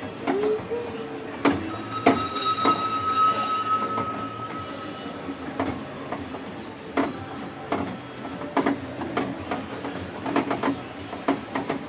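Mall ride train rolling along, its cars rattling and knocking irregularly over a steady low hum. A steady high tone sounds for about two seconds, a couple of seconds in.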